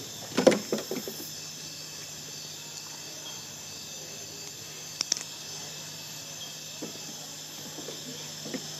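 Steady high chirring of insects with a low steady hum under it; a few short knocks about half a second in and a quick double click around five seconds in.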